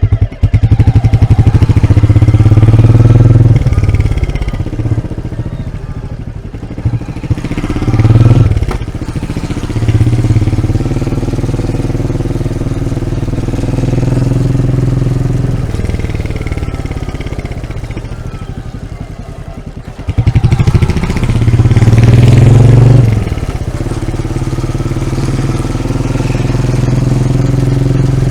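Royal Enfield Meteor 350's stock exhaust, close up at the tailpipe: the single-cylinder engine idles steadily and is revved about five times, swelling and falling back to idle each time, the longest revs about a second in and about three-quarters of the way through.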